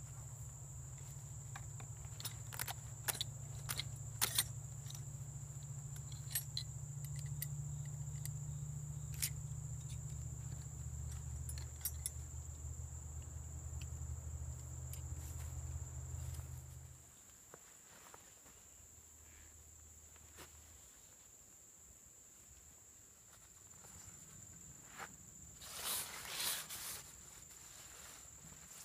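Hand tools and a canvas tool roll being handled: scattered light clicks and clinks over a steady low hum that stops suddenly about two-thirds of the way through. Later, footsteps and rustling on pine straw, loudest near the end, with a steady high-pitched whine throughout.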